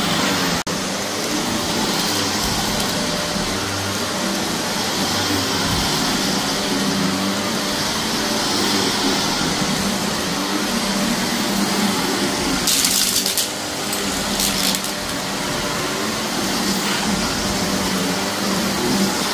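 Vacuum cleaner running steadily over carpet, with a short, sharper high-pitched burst of crackle about thirteen seconds in, as it picks up debris.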